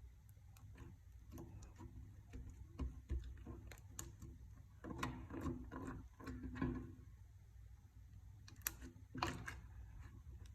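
Slime being squished and worked by hand, giving irregular small sticky clicks and pops. The squelching is heavier about halfway through and again near the end.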